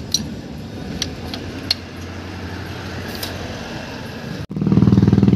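Light metallic clicks and taps of drum-brake shoes and return springs being worked loose by hand, over a steady low hum. After a sudden cut near the end, a loud engine runs close by with a fast, even pulse.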